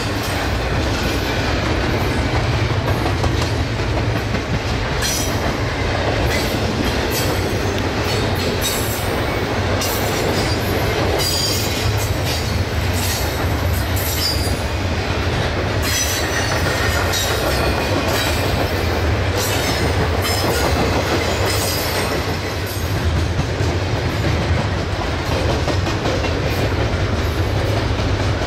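BNSF double-stack intermodal freight train rolling past. Its container well cars clatter steadily, with the wheels clicking over rail joints and a few brief high wheel squeals.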